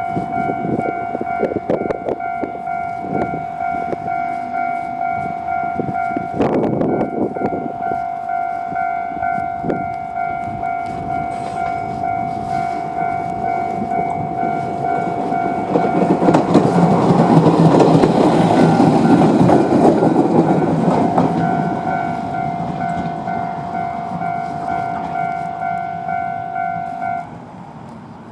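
A Japanese level crossing's electronic warning bell rings steadily while a Moka 14 diesel railcar runs through the crossing, its engine and wheels loudest from about 16 to 21 seconds in. The bell cuts off about a second before the end.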